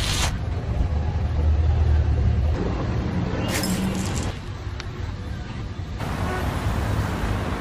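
Steady low rumble of background noise, with a couple of faint clicks near the middle. The background changes abruptly about six seconds in.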